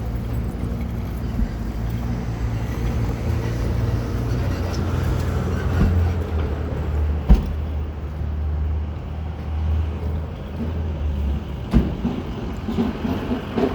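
City street traffic with a steady low engine drone from a motor vehicle, which fades out near the end. A single sharp knock sounds about seven seconds in.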